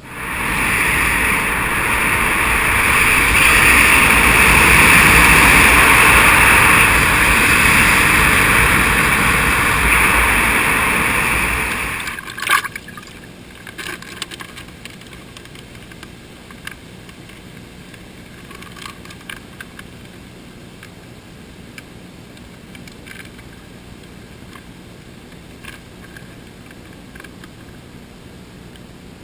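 A loud, steady rushing noise for about twelve seconds that cuts off suddenly. Then faint splashing and crinkling as a zip-top plastic bag is dipped and filled in a small pool of water in a rock crevice.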